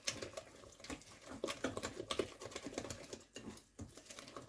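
Thin flour-and-water batter being stirred in a bowl: irregular soft clicks and wet smacks as it is worked to a coating consistency.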